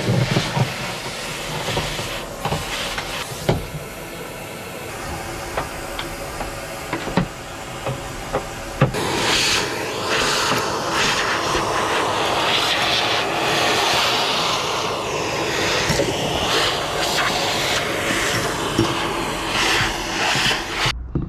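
Vacuum cleaner running, hoovering debris out of a car's floor pan. The hiss grows louder and shifts about a third of the way in as the nozzle works, with a few sharp clicks of grit being sucked up. The sound cuts off abruptly near the end.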